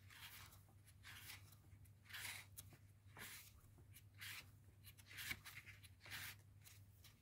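Faint soft paper rustles about once a second, like the pages of a guidebook being leafed through, over a low steady hum.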